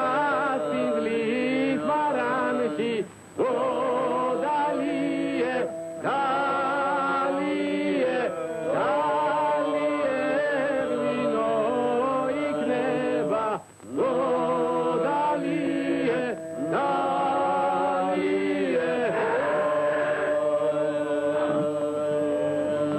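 Several men's voices singing a slow song in close harmony, holding chords with a slight waver. The phrases are broken by short pauses every few seconds.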